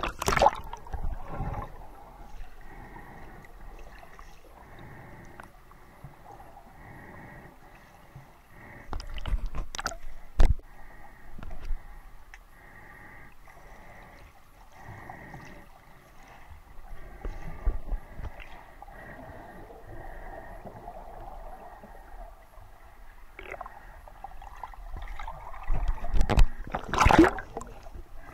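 Muffled underwater sound from a camera held just below the surface: a steady wash of water with gurgling. Louder bursts of splashing and bubbles come at the start, around ten seconds in, and near the end, as a snorkeller's strokes and kicks churn the water close by.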